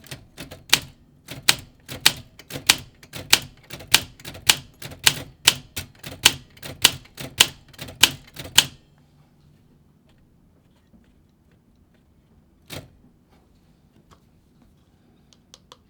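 Olympia SM5 manual typewriter, a key struck over and over at about three strokes a second, each typebar snapping against the platen, as a once-stuck key is tested. The striking stops after about eight and a half seconds, with one more single strike a few seconds later.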